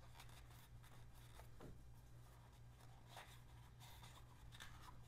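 Near silence: faint rubbing and scraping of a shop towel wiping the engine's oil-filter mounting surface, over a low steady hum.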